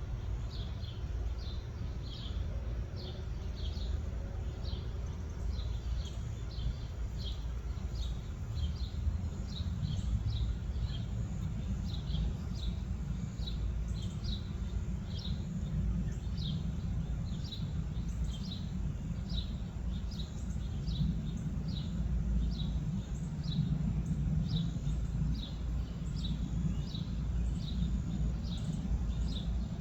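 A small bird repeating a short, high, falling chirp one to two times a second, steadily, over a low background rumble.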